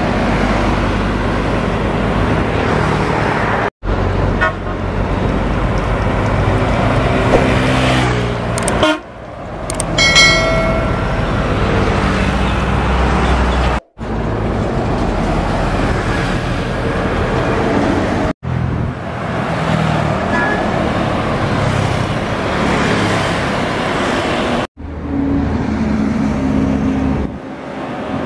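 Coach buses and other highway traffic driving past at speed, with steady engine and tyre noise swelling as each vehicle goes by. A vehicle horn blasts briefly about ten seconds in, and the sound breaks off abruptly several times.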